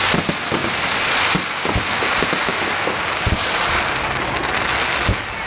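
Aerial fireworks crackling in a dense, steady hiss of many tiny pops, with scattered low booms from shell bursts.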